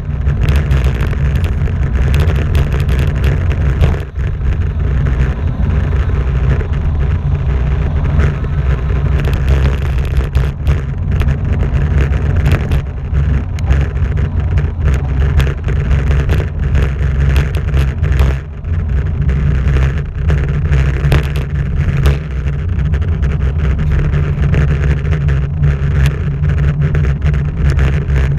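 Loud, steady low rumble of wind buffeting the microphone of a camera riding along a paved road, mixed with road noise, with scattered short knocks.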